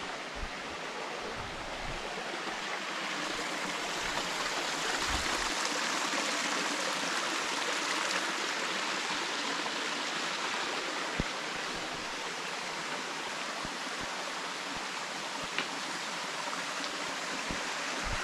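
Steady rush of running water, like a stream flowing over rocks, with a few soft low thuds.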